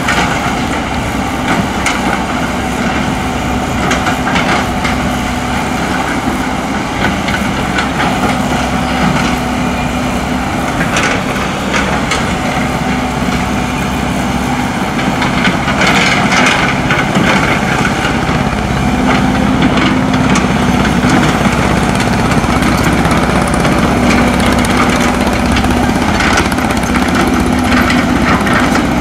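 Diesel engines of heavy earthmoving machinery, an excavator and dump trucks, running steadily, with a few brief clatters about a third and halfway through; the engine sound grows slightly louder from about halfway.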